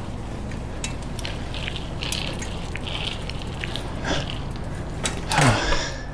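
Bicycle riding along, with a steady low rumble of rolling and scattered clicks and rattles from the bike. About five seconds in comes the loudest sound, a brief one that falls in pitch.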